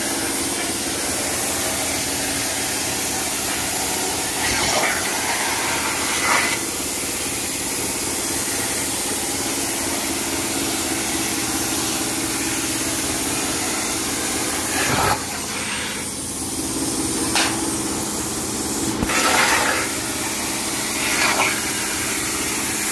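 CNC plasma cutter torch cutting through metal sheet: a steady, loud hiss of the plasma arc over a steady hum, with a few brief louder flares along the way.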